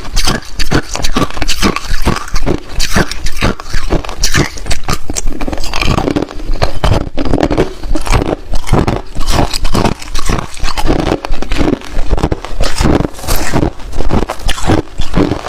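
Hard, clear ice being bitten and chewed close to the microphone: a continuous run of loud, sharp cracks and crunches, several a second.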